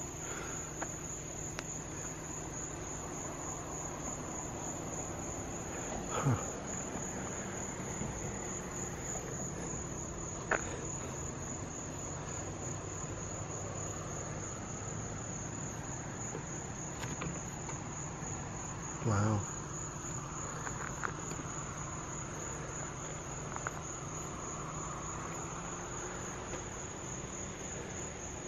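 Night insects trilling in one steady, high-pitched, rapidly pulsing tone, with a few short knocks about a quarter, a third and two-thirds of the way through.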